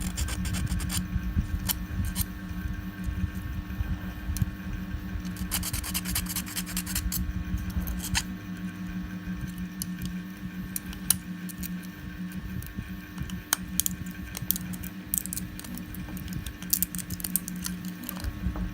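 Plastic 3D-print support material being snapped, cut and scraped off a printed model with pliers and cutters: scattered sharp clicks and snaps, with a quick run of them about six seconds in, over a steady low hum.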